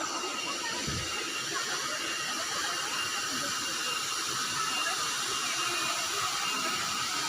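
Waterfall rushing: a steady, even hiss of falling water, with a thin steady high tone running through it.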